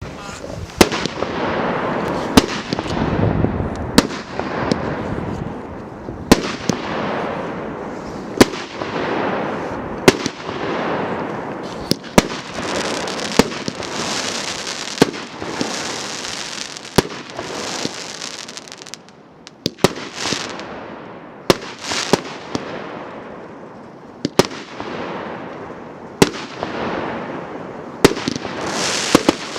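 A 19-shot, 1.25-inch consumer firework cake firing shot after shot. Sharp bangs come about every one to two seconds, each trailed by a fading hiss and crackle.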